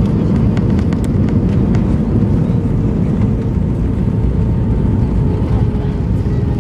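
Airbus A320 cabin noise during landing: a loud, steady low rumble of the engines and rushing air, with a faint steady hum and a few light rattles of cabin fittings in the first couple of seconds.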